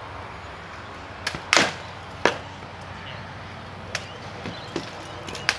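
Rattan swords striking shields and armour in armoured combat sparring: sharp cracks, the loudest about a second and a half in with another just after two seconds, then lighter knocks and one more crack near the end.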